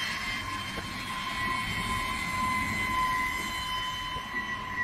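Jet engines of a Boeing B-52 Stratofortress as it taxis: a steady high turbine whine over a low rumble.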